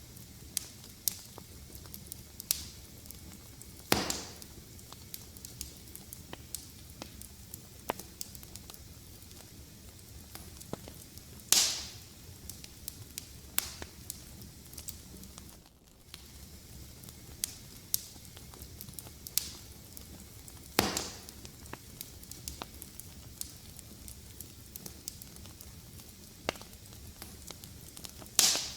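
Fireplace fire crackling steadily over a low rumble of flames, with a constant scatter of small clicks. Four louder sharp pops stand out, spaced several seconds apart.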